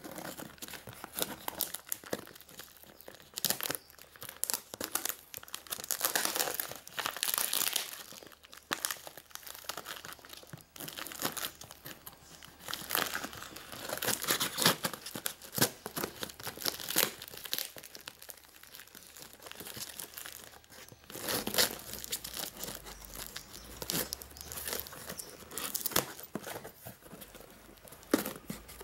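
Brown packing tape being ripped off a cardboard box in irregular stop-start tears, with the cardboard and paper crinkling as the box is opened.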